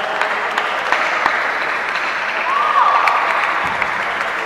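Table tennis rally: short sharp clicks of the ball against the paddles and table, over a steady wash of crowd noise that sounds like applause.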